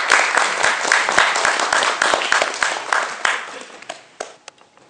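Audience applauding: dense clapping that thins out about three seconds in, leaving a few last scattered claps before it stops.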